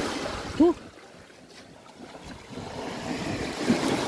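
A mass of small silvery fish sliding and rustling as it is shaken out of a fine-mesh net into a plastic tub, in two surges with a quieter gap between. A short, loud, pitched squeak-like sound rises and falls about half a second in.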